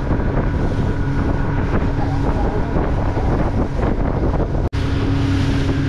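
Outboard motor of a small fishing skiff running steadily underway, with wind buffeting the microphone and water rushing past the hull. The sound breaks off for an instant about two-thirds of the way through.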